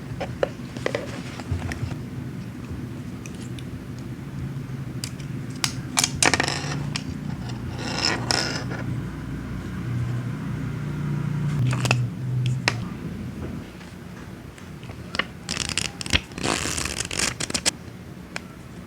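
Hands opening and handling a watch box and its packaging: scraping, rustling and sharp clicks. The handling is busiest about six to eight seconds in and again a couple of seconds before the end.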